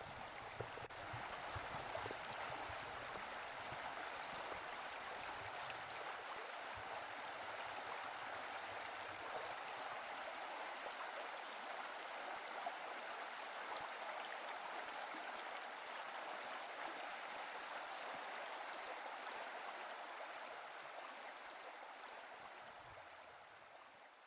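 Creek water flowing steadily over rocks, fading out near the end.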